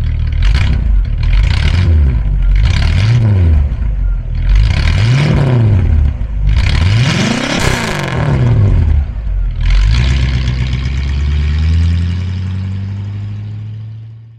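1960 Cadillac Coupe DeVille's V8 revved four times from the exhaust end, each rev climbing and dropping back, the last the highest. It then settles to a steady idle, and the sound fades out near the end.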